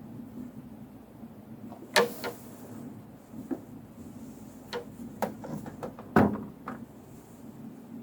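Irregular taps and knocks, a few at a time, with the loudest knock about six seconds in, over a low steady hum from the amplified recording.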